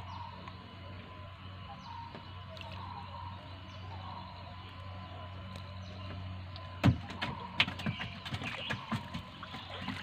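A gill net is paid out by hand from a wooden dugout canoe. About seven seconds in there is a sharp knock, then a run of small splashes, drips and taps as the net and its floats go into the water, over a steady low hum.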